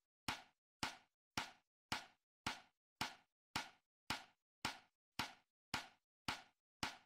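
A steady run of identical sharp knock-like hits, just under two a second, each dying away quickly with silence in between.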